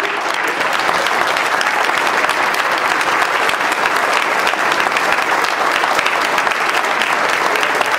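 An audience applauding steadily, a dense, even sound of many hands clapping in a hall.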